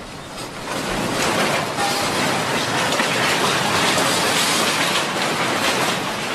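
Loud, steady rumbling and rattling noise of buildings and street fixtures shaking in an earthquake. It swells about a second in, then holds.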